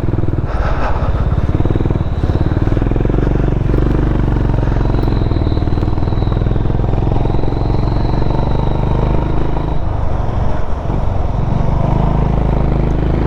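A motor vehicle's engine running steadily while on the move, with road and wind noise.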